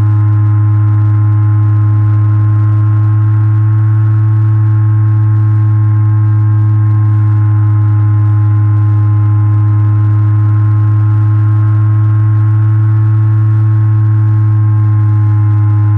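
RC plane's motor and propeller running at steady throttle, heard from a camera mounted on the airframe: a loud, constant low drone with fainter higher tones above it.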